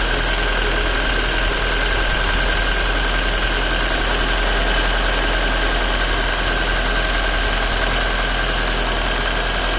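An engine idling steadily with a knock in it, the knock being the fault the recording is made to show.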